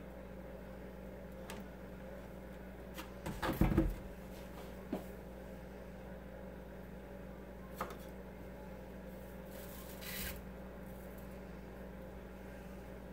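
A plastic detergent bottle set down on a countertop with a brief clatter about three and a half seconds in, followed by a few soft clicks and a short rustle as plastic caps are handled, over a steady low hum.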